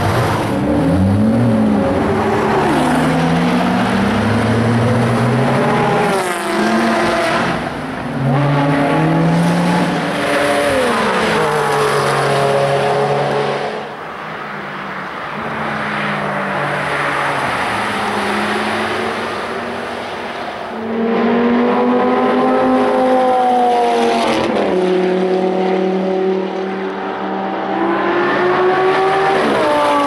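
Supercar engines on a racetrack, one car after another: the revs climb and drop back sharply with each upshift, then fade as each car goes by. A Ferrari 430 Scuderia's V8 pulls away at the start, and a Lamborghini Gallardo LP570-4 Super Trofeo's V10 passes near the end.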